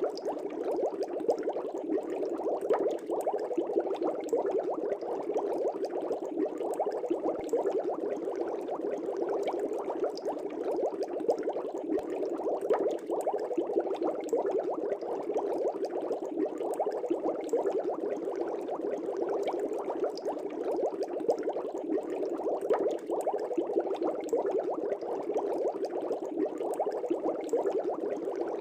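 Aquarium air bubbles rising and popping at the water surface in a fish tank, a steady dense bubbling without a break.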